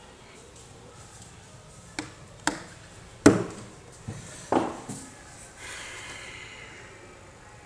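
Handling noise on a wooden desk: five sharp knocks and taps in a little under three seconds, the loudest in the middle, then a brief soft rustle.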